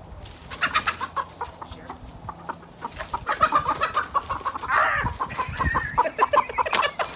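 Hens clucking in quick, repeated calls as they are chased, with a louder squawk about five seconds in.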